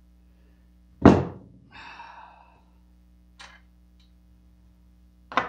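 Engine parts handled on a workbench: a heavy thunk about a second in, a short scrape, a faint click, and a sharp knock near the end.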